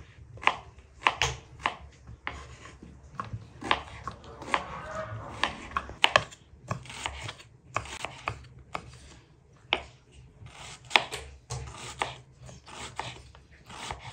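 Kitchen knife cutting raw lamb fat into cubes on a wooden chopping board: irregular sharp knocks as the blade meets the board, with softer slicing between.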